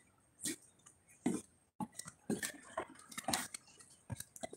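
Footsteps on the wooden planks of a fishing pier at an easy walking pace, about five light knocks, roughly one a second.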